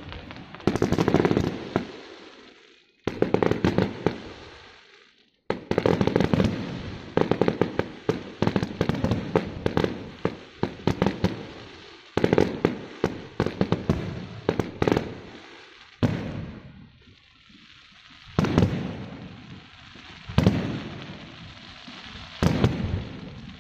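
Fireworks going off in a rapid series of bursts, each a sharp bang followed by dense crackling that fades, with brief lulls between volleys.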